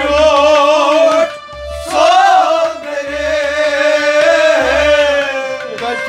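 Kashmiri Sufiyana kalam: men singing a slow, wavering melody to harmonium, with a low drum stroke about every second and a half. There is a short pause in the voice a little over a second in.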